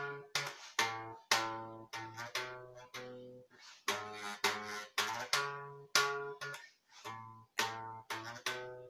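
Guitar being strummed, chords struck one after another about twice a second, each ringing and dying away, as the introduction to a song.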